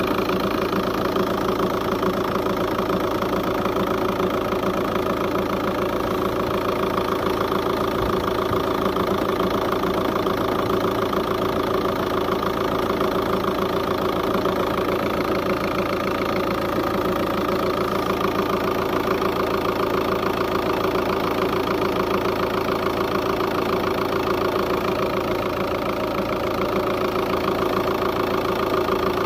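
Volkswagen Touran diesel engine idling from cold under the open bonnet, a continuous fast pulsing run with a slight dip in level near the end. The owner calls it an unstable cold idle.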